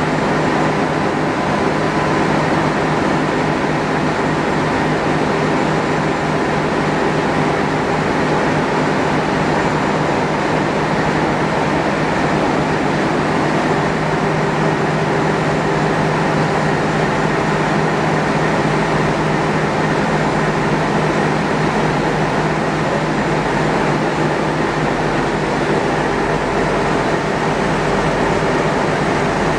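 Ship's diesel main engines running steadily in the engine room: a loud, even drone with a steady low hum that does not change.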